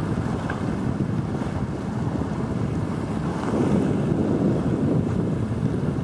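Wind buffeting the microphone in a steady low rumble, swelling a little in the middle, with sea water washing against the concrete tetrapods of the breakwater.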